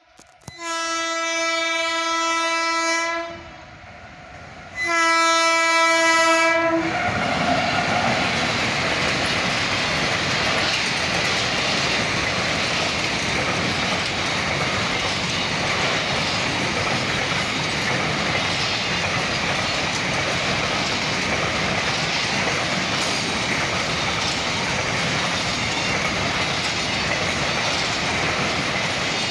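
WAG-9 electric locomotive sounding its horn in two long blasts, the second starting about five seconds in, then the locomotive and its car-carrier freight wagons running past at speed with a steady rush of wheels on rail and clickety-clack.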